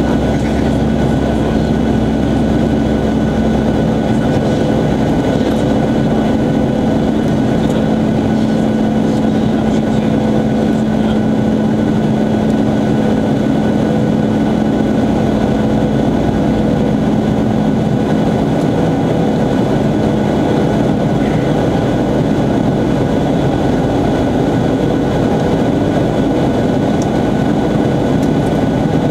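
Steady cabin drone of a Boeing 737-800 in its climb after takeoff: its CFM56-7B turbofan engines and the rush of air over the fuselage heard from inside the cabin, with a low steady hum that eases slightly a little past halfway.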